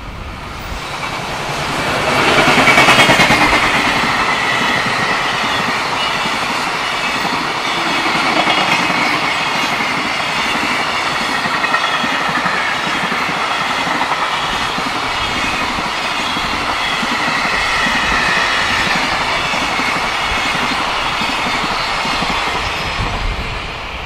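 JR Freight EF210 electric locomotive passing close by at the head of a container freight train, loudest about three seconds in, then the long string of container wagons rolling steadily past on the rails with a faint high whine over the wheel noise, fading as the last wagons go by near the end.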